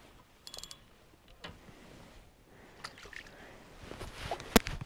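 Spinning reel and rod working as a hooked king salmon is reeled in: faint scattered clicks and rattles, a quick run of clicks about half a second in, and one sharp click near the end.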